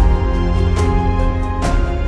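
Background music: sustained chords over a deep bass, with a drum hit about every second.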